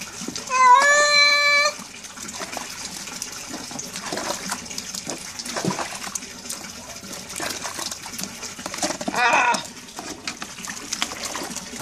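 Wet tabby cat meowing while being bathed: a long meow about half a second in that rises and then holds, and a shorter meow near the end, both drawn out in a way that sounds like the name "Raúl". Water pours and trickles in the bucket between the meows.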